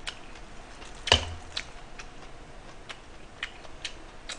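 Steamed oyster shells clicking and knocking as they are handled and pried apart by hand, with one louder knock about a second in and a few lighter ticks after.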